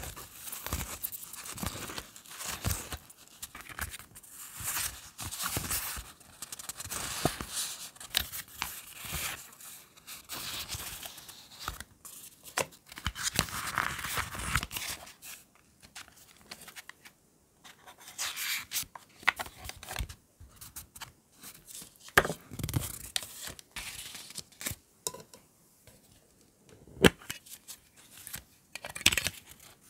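Paper cards and stickers handled close up: a stack of printed cards shuffled and flipped through by hand, with rustling, flicking and crinkling of paper, in short stretches with quiet gaps and a few sharper clicks and knocks in the second half.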